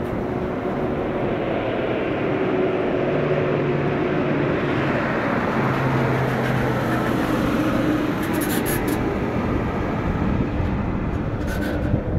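Steady vehicle noise: a low engine hum over continuous road rumble, with a few brief light clicks about two-thirds of the way through.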